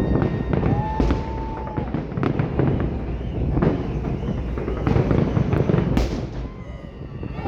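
Fireworks display: many overlapping bangs and crackles over a continuous low rumble. A steady whistling tone starts about a second in and lasts about a second.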